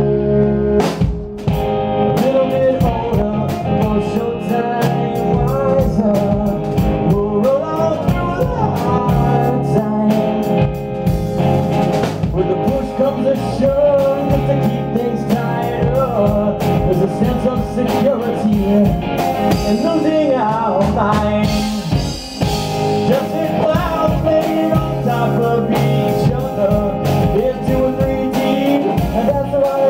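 Live rock band playing: hollow-body electric guitar, electric bass and drum kit, with a man singing over them.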